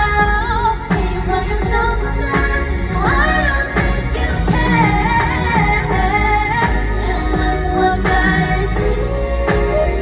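Female K-pop group singing live over a loud pop backing track with a heavy, steady bass.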